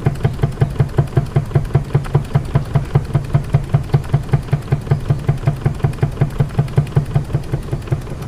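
Vintage Meccano toy steam engine running under steam with a steady, even beat of about five strokes a second. The beat cuts off at the very end.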